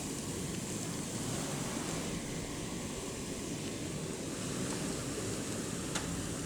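Steady rushing wind of a blizzard, with a faint click about six seconds in.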